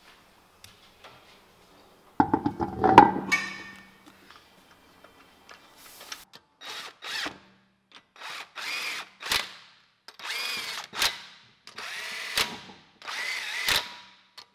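Cordless impact wrench running lug nuts onto a car wheel in a string of short bursts, each about a second or less, its motor whining. There is one louder, lower burst about two seconds in.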